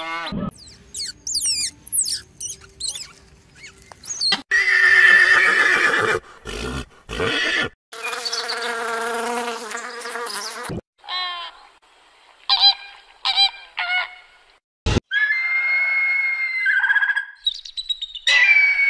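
A string of different animal calls, one after another, separated by abrupt breaks.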